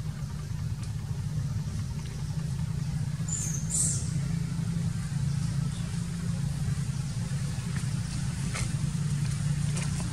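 Steady low engine-like rumble, with two brief high-pitched chirps about three and a half seconds in.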